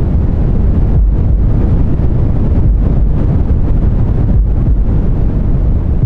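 Steady, deep white-noise rumble for sleep, with a slow heartbeat throb beneath it.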